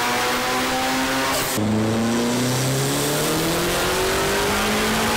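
Modified Volkswagen engines running under load on a chassis dyno, the engine note climbing steadily in pitch as the revs rise. About a second and a half in, one car's run cuts off abruptly and another's starts, again rising in pitch.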